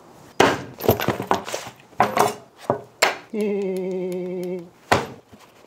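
Quick succession of short, sharp kitchen knocks and clacks, like knives and utensils handled on a board, with one held note lasting about a second and a half near the middle.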